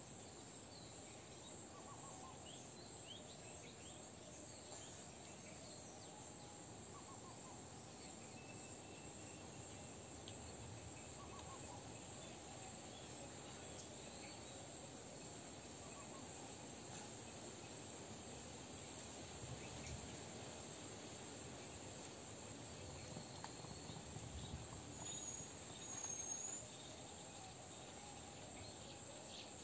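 Faint, steady chorus of crickets and other insects, a high continuous trill, with a few short bird chirps and one brief louder bird call near the end.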